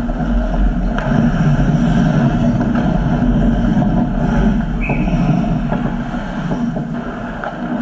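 Ice hockey scramble in front of the net: a steady low rumble with scattered clicks of sticks and skates on the ice, and a short referee's whistle about five seconds in as the goalie covers the puck.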